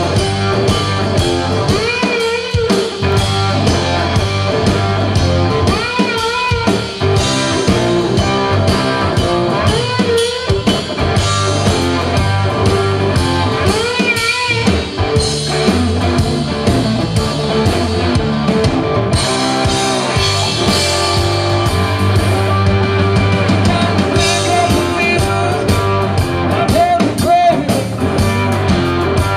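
Live blues-rock band playing: electric slide guitar lead over bass guitar and drum kit. In the first half, the guitar plays wavering, wide-vibrato phrases about every four seconds.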